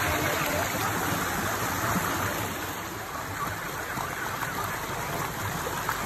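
Shallow mountain stream rushing and splashing down over rocks in small cascades, a steady sound of flowing water.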